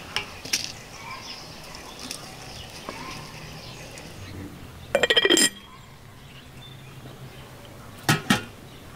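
Tea being brewed in a porcelain teapot: light clinks of a spoon against the pot and hot water pouring into it from a samovar. A short, loud animal call cuts in about halfway through, and two sharp porcelain clinks come near the end.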